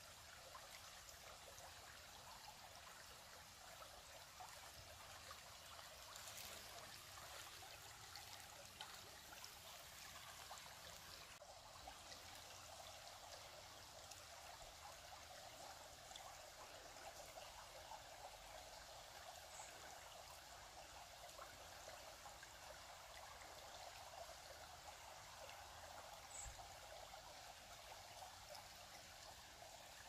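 Shallow woodland brook trickling and babbling over stones, faint and steady.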